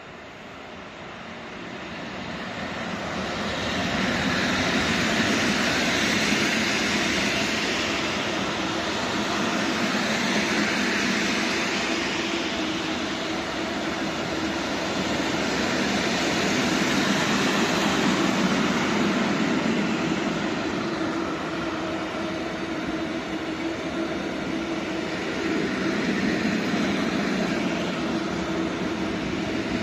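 Freight train hauled by an ET22 electric locomotive rolling past, its wheels on the rails making a steady rumble. The sound swells up over the first few seconds and then rises and falls slowly, with a faint steady hum underneath.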